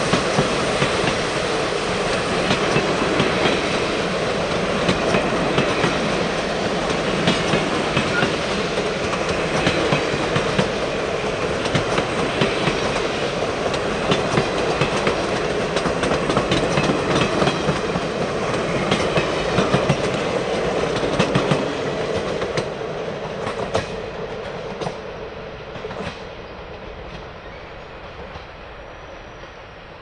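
Royal Hudson 2860 steam excursion train rolling past, its wheels clicking over the rail joints. The sound fades steadily away over the last several seconds.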